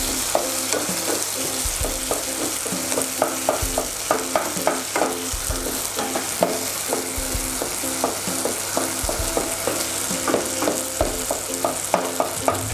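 Eggs being scrambled in a nonstick wok over low heat: a steady sizzle, with a wooden spatula scraping and knocking against the pan several times a second.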